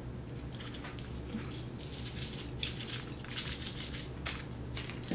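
Light, irregular tapping and pattering as crushed red pepper flakes are shaken onto a pizza.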